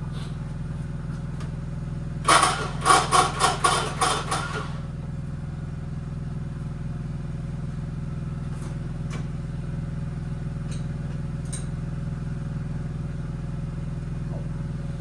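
John Deere 300 garden tractor's engine making a steady low drone. About two seconds in, a burst of roughly seven sharp, loud pulses sounds over it for a couple of seconds.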